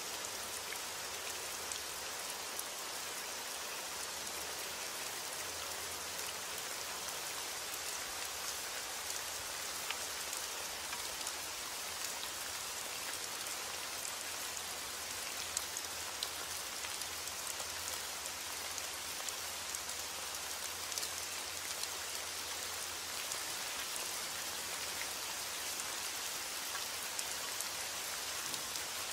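Steady rain falling: an even hiss of many drops, with scattered sharper drop ticks and no change in strength.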